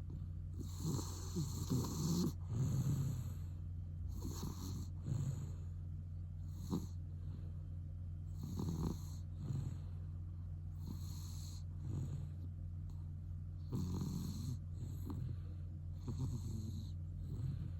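A sleeping cat snoring, with a noisy breath every second or two through a nose congested by chronic rhinitis left by cat flu, which the owner says will not heal. A steady low hum runs underneath.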